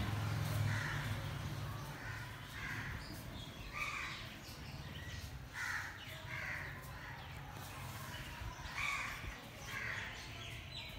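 Crows cawing in a series of short, harsh calls, about one every second or so, over a low steady hum that is strongest in the first second or two.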